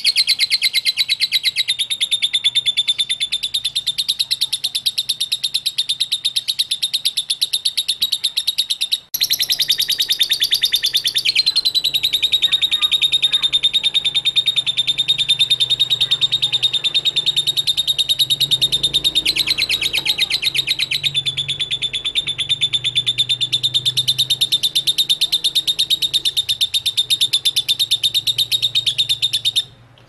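Lovebird singing a long, rapid chattering trill, the drawn-out 'ngekek' song, with one short break about nine seconds in.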